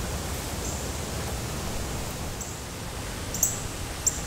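Outdoor garden ambience: a steady hiss with a low rumble underneath, picked up by a camera-mounted shotgun microphone. A few short, very high chirps come through, the loudest about three and a half and four seconds in.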